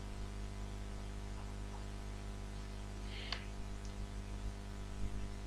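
Steady electrical mains hum with hiss, with one brief faint scratchy click a little over three seconds in.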